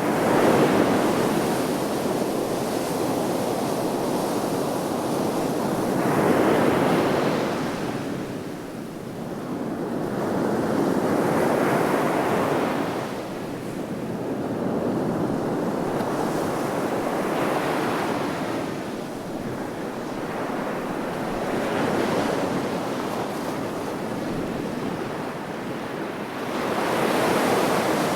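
Sea waves washing onto the shore, the surf swelling and easing every few seconds with a steady hiss between breakers, and some wind on the microphone.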